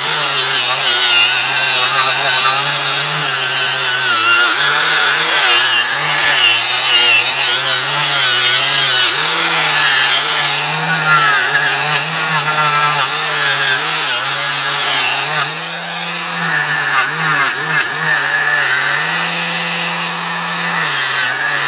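Electric angle grinder with a wire wheel scouring rust and old paint off a steel boiler drum, with a continuous rasping scrape over the motor's whine. The motor's pitch sags and recovers as the wheel is pressed on and eased off the metal, and it runs higher and steadier near the end.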